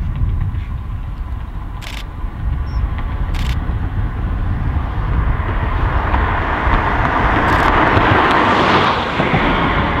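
Road traffic: a steady low rumble, with a car passing that swells from about halfway, is loudest near the end, then begins to fade.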